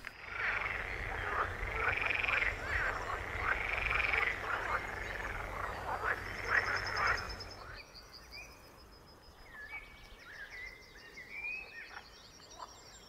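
Chorus of pond frogs (edible frogs) croaking in repeated calls, loudest for the first seven seconds or so, then dropping away to quieter, high bird chirps.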